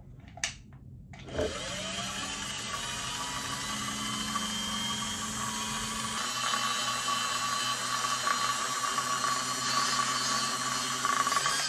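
Early-1960s Singer sewing machine's electric motor running with the handwheel clutch disengaged to wind a bobbin. A click comes first, then the motor spins up with a rising whine about a second in, runs at a steady high speed, and winds down with falling pitch at the end.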